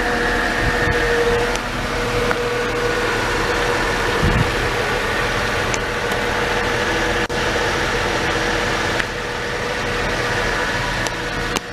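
Mercedes W202 C-Class engine idling steadily: a constant hum with a faint high whine over it, and a soft low thump about four seconds in.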